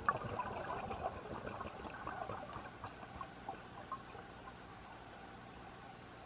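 Underwater recording of a diver's exhaled bubbles crackling and bubbling for about four seconds, then fading, over a steady hiss.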